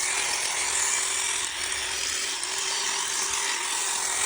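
Electric drill running steadily with a small bit, boring out a hole in a soft cinder block; a steady motor whine sits over a broad grinding noise.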